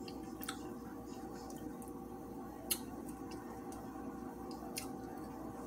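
Eating sounds: three sharp, wet mouth smacks about two seconds apart over a steady room hum.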